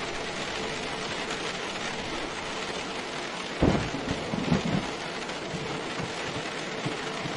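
Steady rain, with a sudden clap of thunder about halfway through that rumbles on for a second or so.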